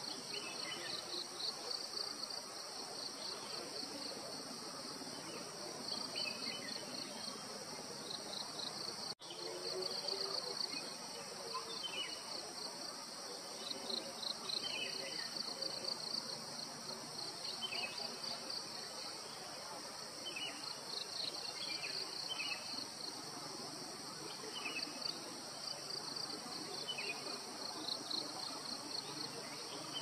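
Forest ambience: insects keep up a steady, pulsing high buzz, and birds call with short falling chirps every few seconds. The sound drops out for a moment about nine seconds in.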